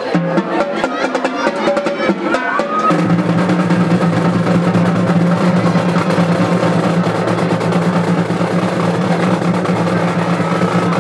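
Marching band at a football kickoff: a snare drum roll with drum hits, then about three seconds in the band holds one long low chord over the drums.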